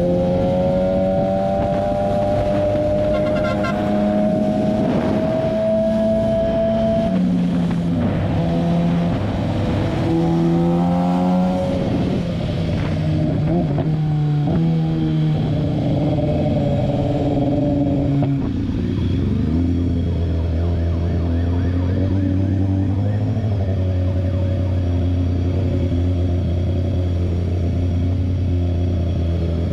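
BMW S1000RR's inline-four engine heard from the rider's seat. It rises in pitch under acceleration, changes pitch in steps through the middle, then settles into a lower, steady run about two-thirds of the way in, over a steady rush of wind and road noise.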